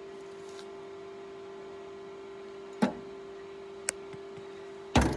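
Steady electrical hum, with a sharp knock about three seconds in, a short click a second later, and a loud rustling clatter starting just before the end.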